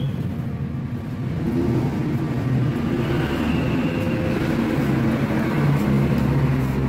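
A steady low engine hum from a running vehicle or machine off-camera, continuing throughout.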